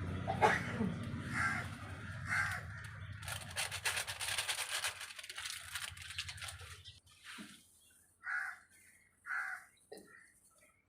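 Crows cawing, several short separate caws, two of them about a second apart near the end. A hiss runs for a few seconds in the middle, with a low hum underneath that fades out.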